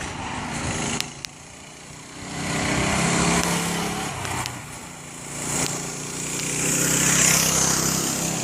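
Baja mini bike's 212cc single-cylinder engine running as the bike is ridden. Its sound swells and fades twice, growing loud about three seconds in and again near the end.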